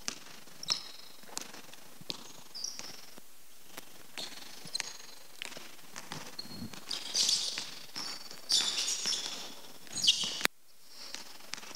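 A basketball being dribbled on a hardwood court, bouncing about every 0.7 s. Sneakers squeal on the floor in short chirps as the players change direction.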